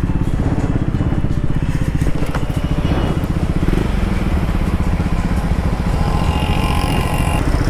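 Triumph Scrambler 400 X's single-cylinder engine running steadily under way, a dense, fast low pulse.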